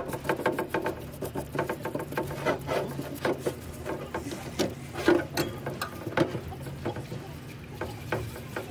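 Metal starter-motor parts being handled and scrubbed in a solvent wash tray: irregular scraping and rubbing, many small metal clinks and knocks, and wet splashing, over a steady low hum.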